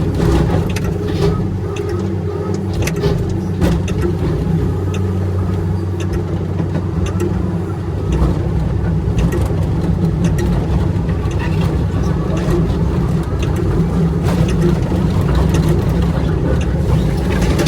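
Large excavator's diesel engine running steadily, with scattered sharp clicks and taps over the drone.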